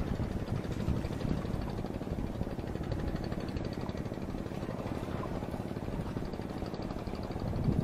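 A motor engine running steadily, a continuous low drone with a fast, even pulse.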